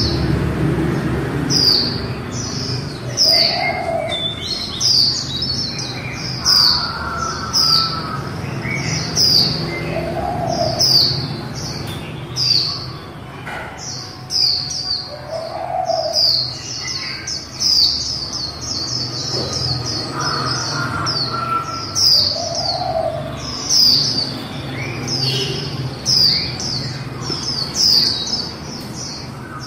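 Female white-eye (vành khuyên) calling: a steady series of short, high, falling chirps, about one a second. A soft, lower note repeats about every six seconds behind them.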